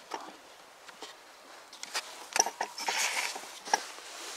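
Handling noise from a hand-held camera being taken off its mount and carried: scattered clicks and knocks, with rustling a little before three seconds in.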